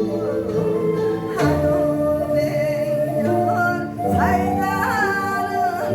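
A woman singing a Korean folk song (minyo) with sliding, bending vocal lines over instrumental accompaniment that holds long, steady notes.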